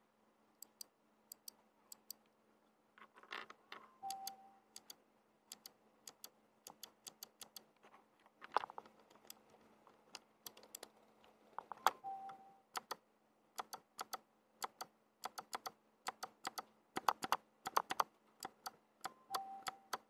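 Kailh Arctic Fox clicky mechanical keyboard switch, topped with a keycap, pressed and released over and over by a finger. Each stroke gives sharp clicks, sometimes singly and sometimes in quick bursts of presses.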